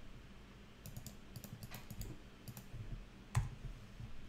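Quiet clicking of a computer keyboard and mouse: a scatter of short keystrokes and clicks, with one louder click a little over three seconds in.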